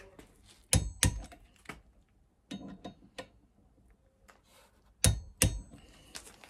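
Click-type torque wrench on connecting-rod bolts: twice, each time a pair of sharp clicks as the wrench breaks at its set torque, with quieter ratchet clatter in between as it is repositioned.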